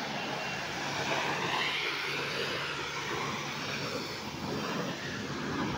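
High-pressure washer jet spraying water over a motorcycle: a steady hiss of spray over the even hum of the washer's pump motor.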